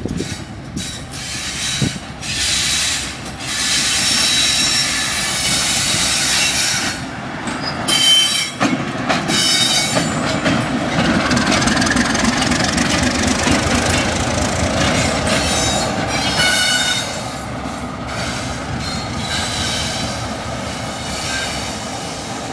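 Diesel locomotive passing close by at low speed: its engine running steadily, loudest as it goes past, with the wheels squealing in short high-pitched spells.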